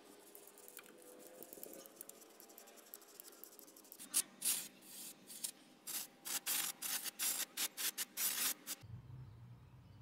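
Metal brush scrubbing faintly against the rusty bore of a steering knuckle, then an aerosol spray can hissing in about a dozen short bursts over roughly five seconds.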